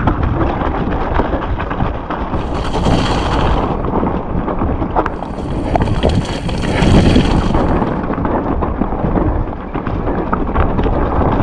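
Wind buffeting the microphone of a camera riding on a mountain bike descending a rough, wet trail, over a steady clatter of rattles and knocks from the bike. A brighter hiss rises for about a second a couple of seconds in, and again for a few seconds mid-way.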